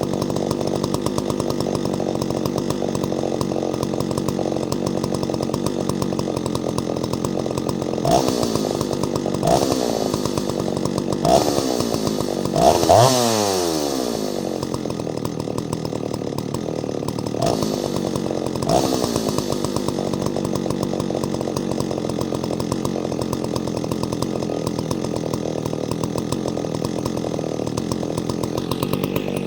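Ported Solo 670 chainsaw engine running at a steady low speed, blipped on the throttle several times. Near the middle it revs up the highest and winds back down.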